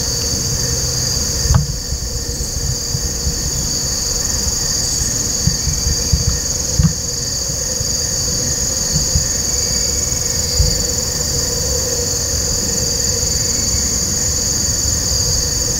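A steady, high-pitched chorus of insects such as crickets, with a low rumble and a few short dull thumps.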